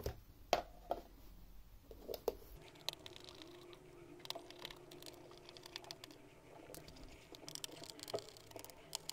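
Faint, scattered light clicks and taps of plastic parts and a small screwdriver on a laptop's underside, as the rear plastic cover is lifted away and screws are worked loose.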